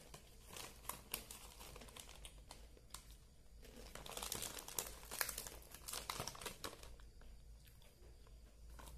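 Small plastic chip packet crinkling in the hands as it is tipped up and shaken to empty the last chips into the mouth, with irregular crackles that are thickest around the middle.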